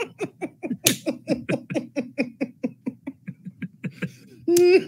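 Two men laughing hard, a long run of short breathy bursts of laughter several times a second that trails off, then a louder drawn-out vocal note near the end.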